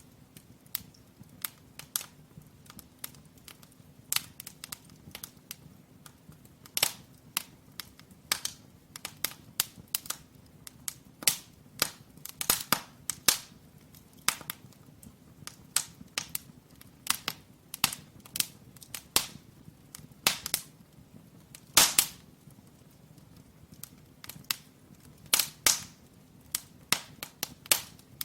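Firewood crackling in a brick fireplace: irregular sharp cracks and pops, a few much louder than the rest, over a low steady rush of the fire.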